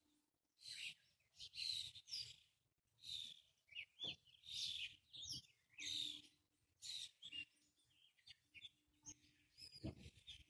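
A group of songbirds chirping and calling in the trees: many short, high-pitched calls with quick up-and-down glides, overlapping one another.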